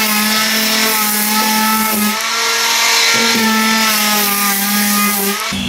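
Angle grinder with an 80-grit flap disc running against a laminated wooden keel, grinding off hardened glue squeeze-out. It gives a steady motor whine whose pitch shifts a little as it is pressed, and it stops just before the end.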